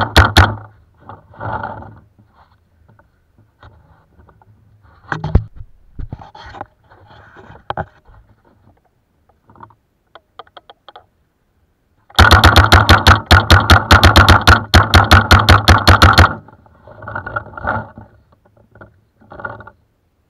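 Paintball marker firing in rapid strings of shots, one brief string at the start and a longer one lasting about four seconds in the second half, with scattered faint knocks and rustles between.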